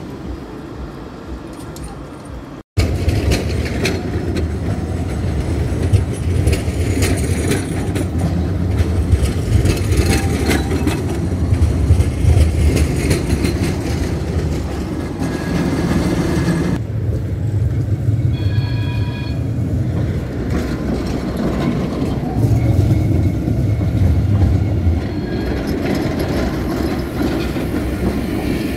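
Tram running on its rails: a steady low rumble with wheel and rail clatter. The sound cuts out for an instant about three seconds in, and about two-thirds of the way through a short chime sounds for a second or so.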